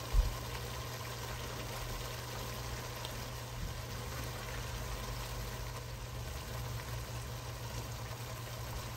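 Yogurt-based masala cooking down in a pot, a steady quiet bubbling over a constant low hum, with a single knock just after the start.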